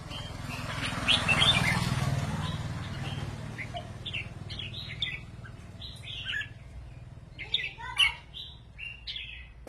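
Red-whiskered bulbuls singing short whistled phrases back and forth. A broad rushing noise swells about a second in and fades, and a burst of loud notes comes near the end.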